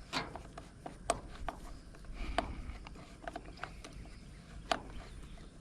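Irregular light metallic clicks and small knocks from a Stihl MS192 chainsaw's new bar and chain while the chain tension is being adjusted by hand.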